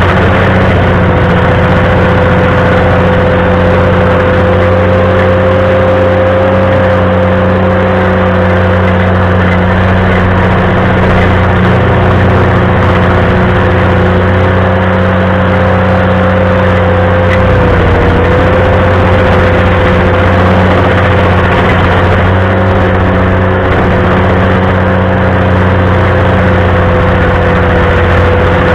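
Ventrac compact tractor running its stump grinder attachment: engine and grinder held at steady high speed, with a constant whine over a low rumble. The pitch sags briefly about two-thirds of the way through, as under a moment of load, then recovers.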